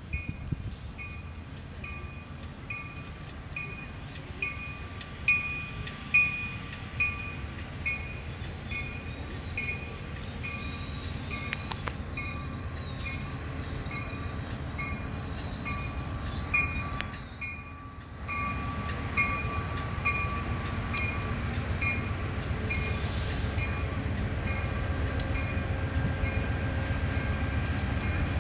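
A train running, with a low rumble that dips briefly and then grows louder from about two-thirds of the way through. A steady high ding repeats about twice a second throughout, and a few sharp knocks sound early in the first half.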